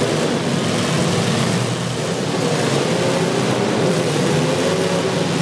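Demolition derby cars' engines running loud and steady, their pitch drifting slightly up and down as they rev.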